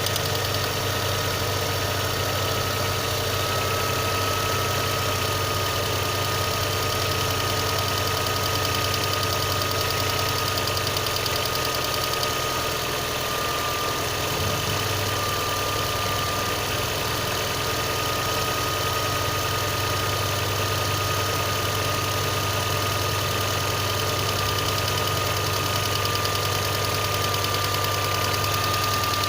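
VAZ-2112 car engine idling with a rapid, steady knock, a cold-engine knock. A steady high whine runs throughout.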